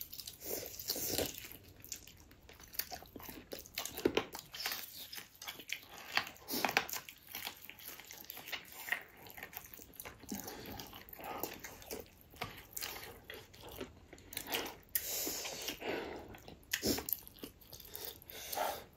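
A person chewing and biting food close to the microphone: many short, irregular mouth noises and soft crunches.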